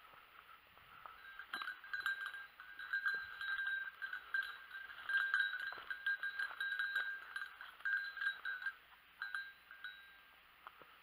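Small bell on a hunting dog's collar jingling irregularly as the dog quests through dry bracken, loudest in the middle and fading near the end. Dry ferns and twigs crackle at the same time.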